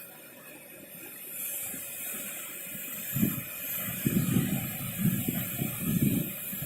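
Big ocean waves and surf giving a steady hiss, with wind buffeting the microphone in irregular low gusts from about three seconds in.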